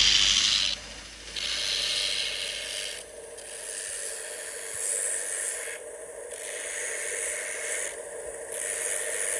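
Belt grinder running, its abrasive belt over a contact wheel grinding a wenge wood knife handle and its steel tang flush. The loud rasping grind falls back to the machine's steady running tone each time the handle is eased off the belt, about a second in and again near three, six and eight seconds.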